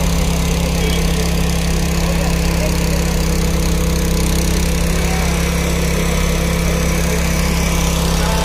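An engine running steadily at a constant speed, an even low hum that does not change in pitch or loudness.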